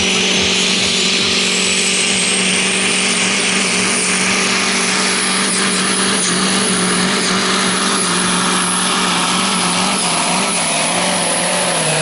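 Scania truck's diesel engine running hard under full load, pulling a weight-transfer sled, with a high whistle rising over the first few seconds. The engine note drops off right at the end as the pull winds down.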